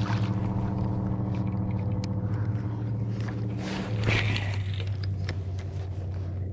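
Steady hum of a bass boat's bow-mounted electric trolling motor running, with a brief rustle about four seconds in.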